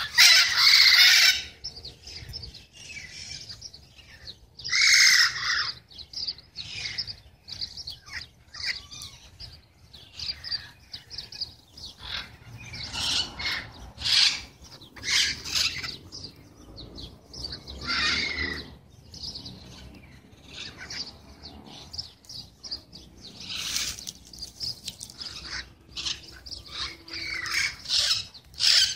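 A flock of wild green parrots in a tree screeching and chattering, with loud harsh calls every few seconds and quieter chatter in between.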